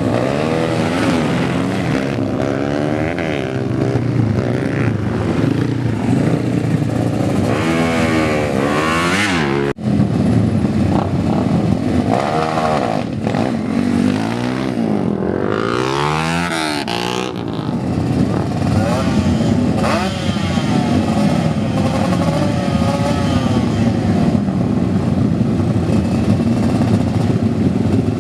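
Several loud modified motorcycle engines revving together, their pitch rising and falling over and over, with a sharp break about ten seconds in.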